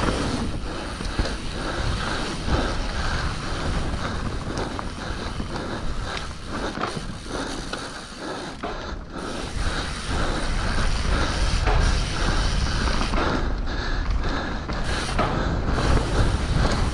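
Mountain bike descending a rough dirt trail at race speed: tyres rolling over dirt and pine needles, the frame and drivetrain clattering with constant sharp clicks and knocks over the bumps, over a steady low rumble.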